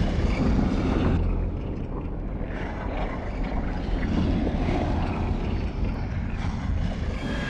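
Steady low rumbling noise with a hiss above it, dipping slightly in level about a second and a half in.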